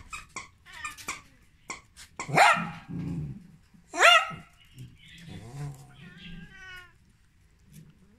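Havanese dogs and a long-haired cat play-fighting: short clicks and scuffles, two loud, sharp, rising yelps about two and four seconds in, and a drawn-out whine around six seconds in.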